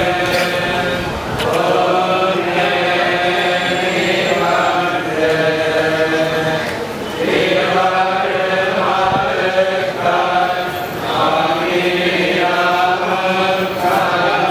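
A group of men chanting hymns together in unison, in long sustained phrases with short breaks between them.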